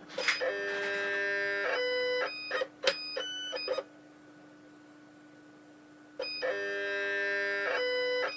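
Stepper motors of an XYZprinting Nobel 1.0 resin 3D printer whining at a few steady pitches for about two seconds, then a few short stepped tones and clicks. The sound falls quiet for about two seconds and the same pattern starts again just past six seconds, once per layer move of the build platform.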